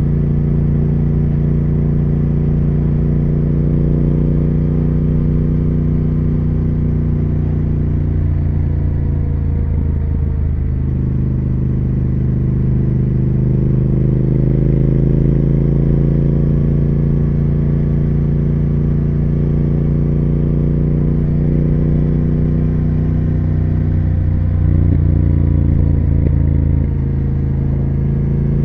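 2020 Triumph Speed Twin 1200's parallel-twin engine and exhaust running under way. The pitch sags and then climbs again about ten seconds in, and the engine gets a little louder near the end.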